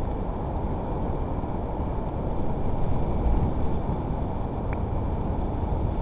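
Wind buffeting an outdoor webcam microphone, a steady low rumbling noise. A brief faint high note sounds about three-quarters of the way through.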